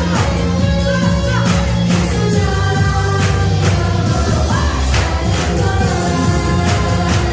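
Upbeat pop song with a singer over a steady drum beat of about two beats a second.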